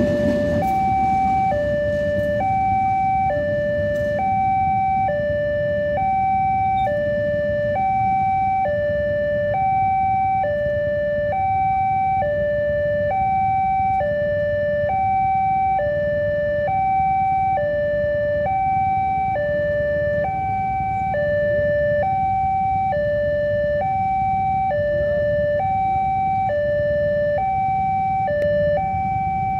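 Railway level-crossing warning alarm from the mast loudspeaker, an electronic two-tone signal alternating high and low, each tone held about a second, sounding continuously while the barriers are down. A steady low rumble runs underneath.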